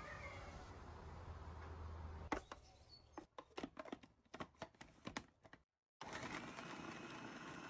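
A low steady hum, then a run of about a dozen sharp, irregular clicks and taps over about three seconds, broken off by a moment of dead silence.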